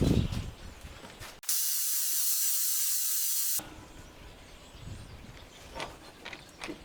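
Compressed air hissing hard and steady for about two seconds. It starts and cuts off sharply, as air is let through the air-powered U-joint press. Faint clicks and knocks of the tool work come before and after it.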